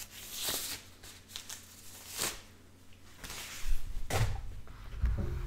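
Handling noises: a few brief rustling swishes, then soft low bumps and rumble in the second half.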